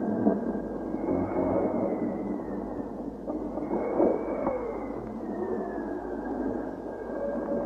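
Electroacoustic film score: a dense, rumbling noise with a thin high tone slowly wavering up and down above it, and a few short sliding tones about halfway through.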